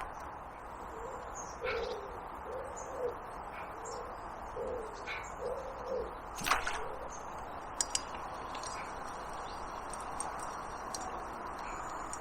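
A pigeon cooing a repeated phrase of low, soft notes, with a sharp click about six and a half seconds in.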